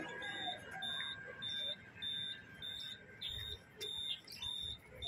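Electronic warning beeper at a light-rail pedestrian crossing, sounding a high-pitched beep about twice a second. The departing tram's faint motor whine falls slightly in pitch and fades out in the first second or two.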